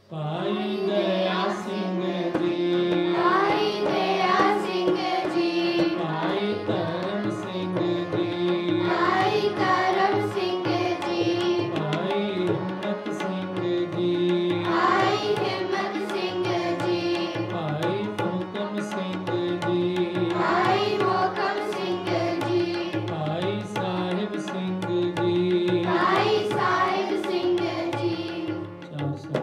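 Sikh kirtan: harmoniums holding steady reed chords and tabla drumming a rhythm under voices singing a devotional hymn. The music strikes up right after a brief hush and eases off near the end.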